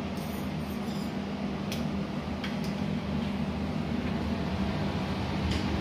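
Steady low machine hum in a room, like a running fan or appliance motor, with a few faint light clicks scattered through it.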